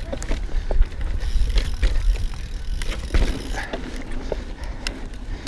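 Mountain bike rolling along a gravel and dirt track: a steady low rumble from the tyres with scattered sharp clicks and rattles from stones and the bike.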